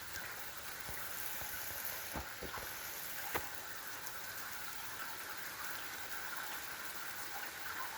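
Steady rain falling, with a few sharp ticks of drops landing close by between about two and three and a half seconds in.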